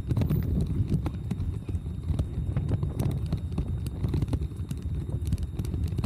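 Bicycle rolling over paving stones and cobbles, its frame and handlebar camera mount rattling in quick, irregular clicks and knocks, over a steady low rumble.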